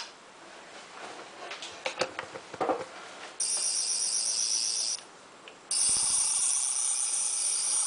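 Sonic screwdriver toy playing its electronic sonic sound effect, a high-pitched warbling whine. It starts about three seconds in, breaks off briefly, then starts again. Before it come a few light clicks and handling knocks.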